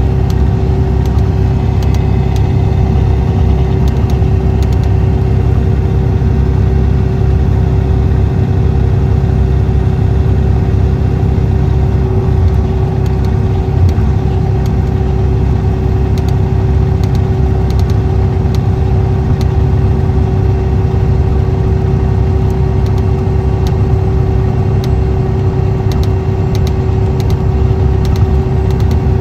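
Cummins ISX 11.9-litre six-cylinder diesel of a 2014 MCI D4500CT motor coach running steadily at an unchanging engine speed. It makes a loud, low sound with a steady hum, and light clicks are scattered through it.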